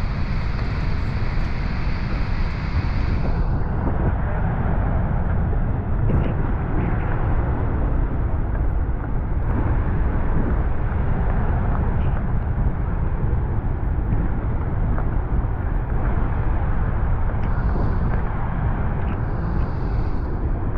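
Steady roar of Niagara's Horseshoe Falls, a constant rushing noise heavy in the low end.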